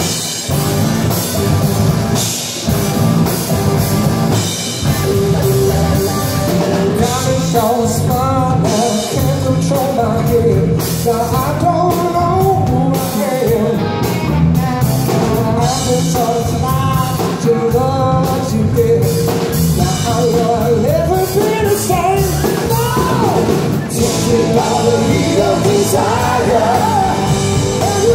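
Live rock band playing: electric bass, electric guitar and a drum kit, with a lead vocal singing over them.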